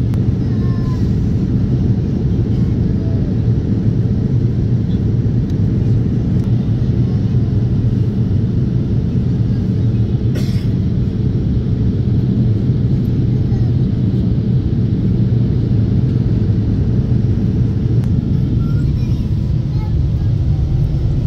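Steady low cabin roar of a jet airliner in descent: engine and airflow noise heard from inside the cabin. There is a brief click about halfway through.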